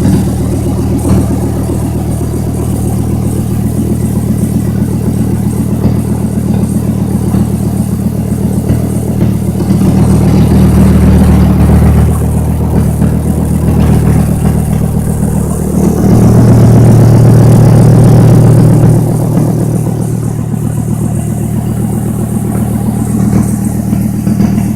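Dodge Viper RT/10's 8.0-litre V10 running steadily, freshly started in cold weather. About two-thirds of the way through it gets louder and deeper for about three seconds, then settles back.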